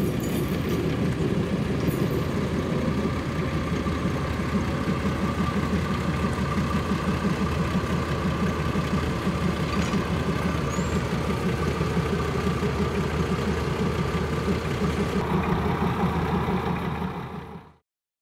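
MBxd2 diesel railcar's engine running steadily with a low rumble as the railcar passes close by on narrow-gauge track. The sound fades out quickly near the end.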